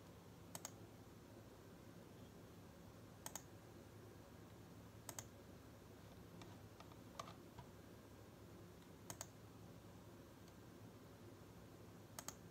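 Computer mouse buttons clicking every few seconds, about six times, each a quick double snap of press and release, over a faint steady low hum.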